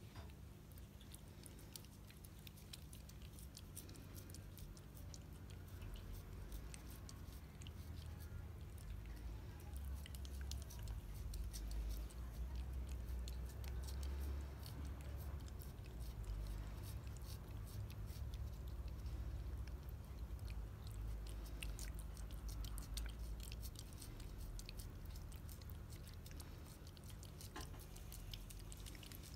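A cat licking Ciao Churu purée from a squeezed tube: a fast run of small wet licking and smacking clicks, over a low steady hum.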